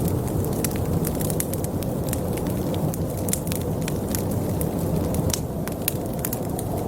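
Wood fire crackling in a fireplace, with many sharp pops and snaps, over a steady low rumble of blizzard wind.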